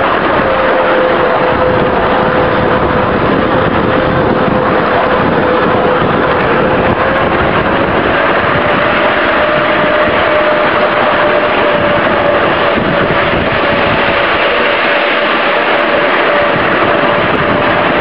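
5-inch gauge electric shunter locomotive running along a miniature railway: a steady whine from its electric drive that rises a little in pitch about halfway through, over continuous running noise from the wheels and track.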